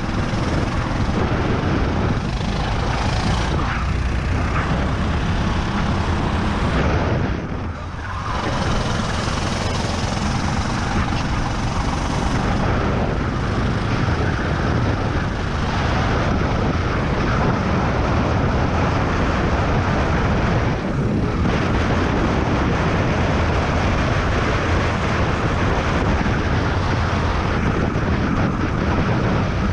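Racing kart engine running hard, heard from on board the kart along with the rush of air and tyre noise. About eight seconds in it briefly drops in level, then picks back up and holds steady.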